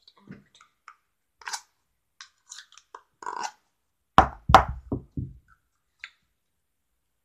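Plastic play knife scraping and clicking as modelling dough is scraped out of its tub. About four seconds in comes a quick run of about five knocks, the loudest sounds.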